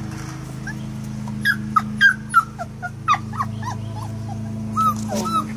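Four-week-old flat-coated retriever puppies whimpering and yipping: a string of short high squeaks starting about a second and a half in, over a steady low hum.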